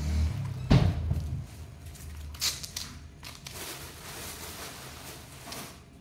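A single sharp thump about a second in, then quieter light knocks and a brief crinkle of a thin plastic bag as oranges are handled and set down.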